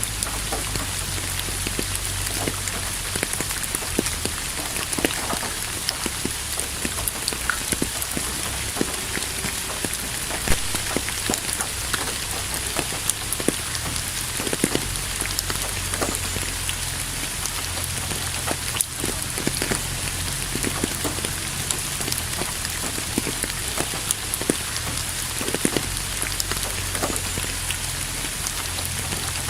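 Steady rain falling, with many individual drops ticking on a surface over an even hiss and a low, steady rumble underneath.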